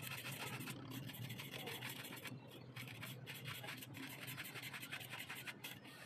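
A hand tool scraping and rubbing against cement plaster on a wall in quick, repeated strokes, broken by a few short pauses. A low steady hum runs underneath.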